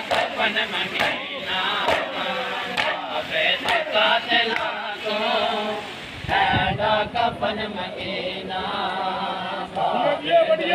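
A crowd of men chanting a noha, a Shia mourning lament, together without accompaniment: many voices at once in a dense chorus, dipping briefly about six seconds in.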